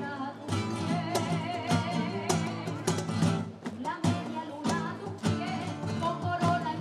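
Music: a flamenco-style song with strummed guitar and a singing voice.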